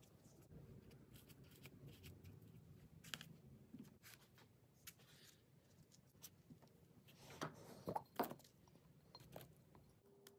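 Quiet needle felting: irregular soft pokes and crunches of a barbed felting needle going into wool, with hands handling the wool piece and foam pad. A few louder clicks come about seven to eight seconds in.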